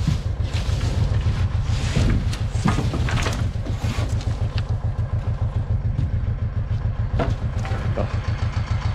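Ursus C-330 tractor's two-cylinder diesel idling with a steady low throb, while loose branches rustle and scrape across the trailer's wooden bed as they are pushed off by foot.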